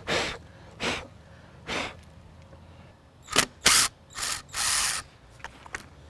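A string of short scraping and rustling noises with a sharp click about halfway through, as hands and a tool work at the rough bark of an elm log to get at screws buried in it.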